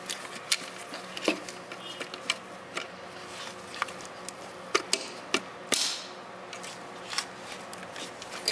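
Scattered clicks and knocks of plastic intake parts as an air mass sensor and intake elbow are handled and pushed into place on the engine, with a couple of brief rubbing sounds about three seconds in and again near six seconds.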